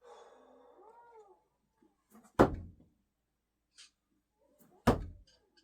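Two thrown flathead screwdrivers hitting the target, sharp impacts about two and a half seconds apart, the second near the end. Just before them there is a brief, faint pitched sound that wavers up and down.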